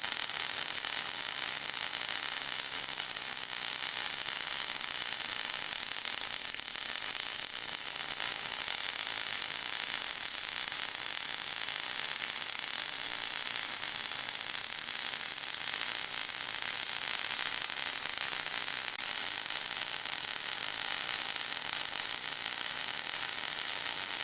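Steady, high-pitched white-noise hiss of a tinnitus-masking track, with a fine, dense crackle running through it.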